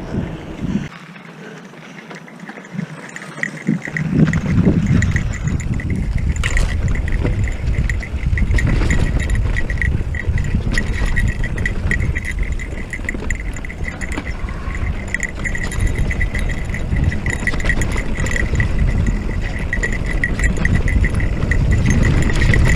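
Electric mountain bike riding over a rocky dirt trail: wind buffeting the microphone along with tyre and frame rattle, and a steady high whine over it. It is quieter for the first few seconds, then grows louder about four seconds in.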